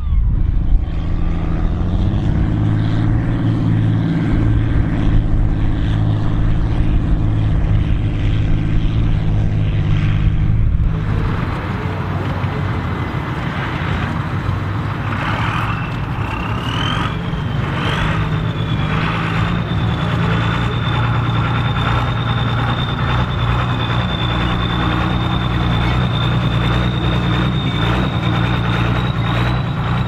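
A tractor diesel engine runs hard under ploughing load. About eleven seconds in, the sound switches to a Volvo BM 810 Turbo tractor's diesel pulling a plough. From about fifteen seconds a high turbocharger whistle rises and then holds steady over the engine.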